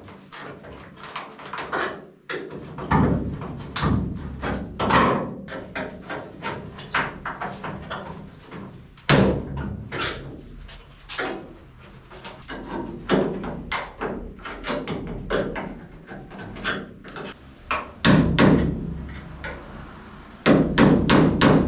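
Irregular knocks and clanks of tools on the sheet-metal roof skin of a 1978 Datsun 280Z as it is worked loose from its spot welds, with louder clusters of blows a few times.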